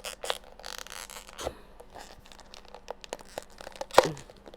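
Takeout food packaging being handled: rustling and crinkling, with scattered light clicks and a sharper knock about four seconds in.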